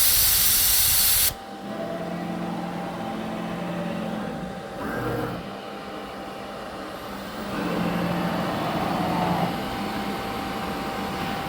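A loud hiss, typical of compressed air blowing through an automatic tool-change spindle, cuts off suddenly about a second in. It is followed by the CNC router's axis motors humming as the machine moves through its automatic tool-length calibration, their pitch rising and falling with each move.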